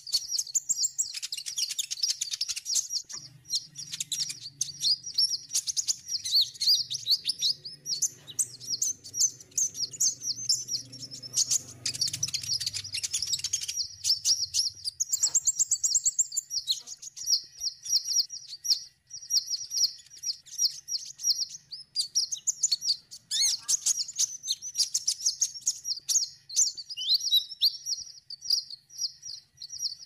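Sunbird song: a rapid, unbroken run of high chirps and twitters.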